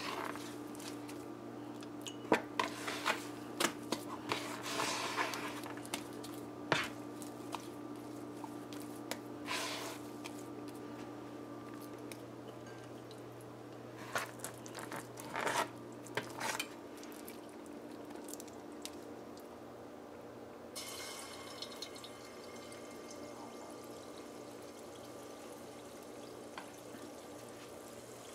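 Wet squelches and clicks of a hand scooping soft, risen pholouri batter (a split-pea and flour batter), over a low hum that stops about halfway through. About two-thirds of the way in, a steady faint sizzle starts as a test dollop of batter fries in hot oil, the sign that the oil is hot enough to fry.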